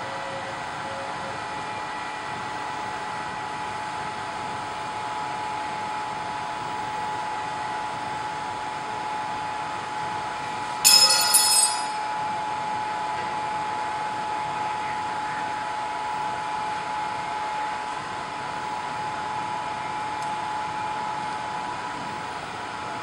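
Hot-air blower of a BGA rework station running steadily: an even rushing fan noise with a faint steady whine. About eleven seconds in, a brief sharp high-pitched sound lasting about a second stands out above it.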